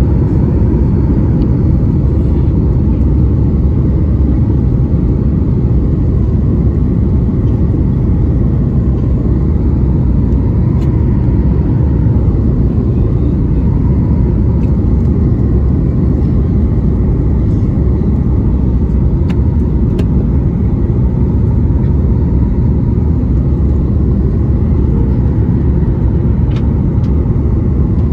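Jet airliner cabin noise during descent: a steady low rumble of engines and rushing air, with a few faint clicks.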